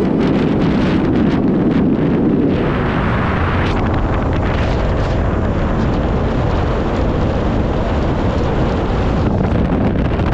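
Wind rushing over the microphone of a motorcycle moving at expressway speed, a loud steady rush. About two and a half seconds in, the low rumble eases and a higher hiss takes over.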